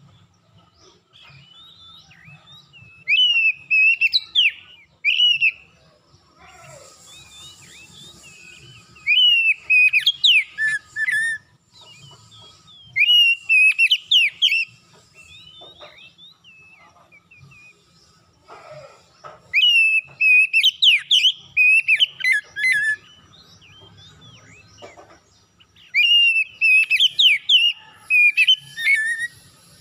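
Oriental magpie-robin singing loud whistled song phrases in five bouts of two to three seconds each, a few seconds apart, every bout a rapid run of rising and falling notes.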